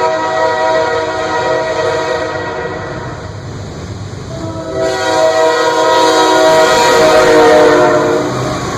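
Locomotive air horn sounding a multi-tone chord in two long blasts over a low rumble. The first blast fades out about three to four seconds in, and a second, louder blast starts about four and a half seconds in.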